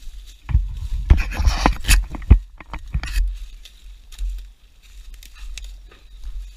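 Footsteps crunching and snapping through dry leaves, twigs and brush, with branches scraping past, busiest and loudest in the first three seconds, then lighter crackles.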